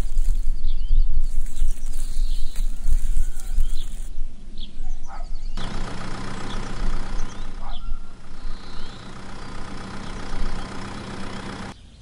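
Mini toy tractor's small motor running with a steady hum that starts about five and a half seconds in and cuts off just before the end, with birds chirping. Before the motor starts there is a low rumble.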